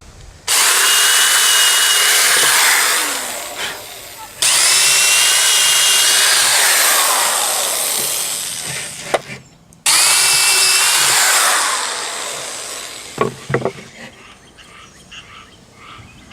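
Power drill boring starter holes through the wood of a scroll-saw pattern, three runs that each start suddenly at full speed with a high whine and fade over a few seconds as the bit works through, followed by a few light knocks near the end.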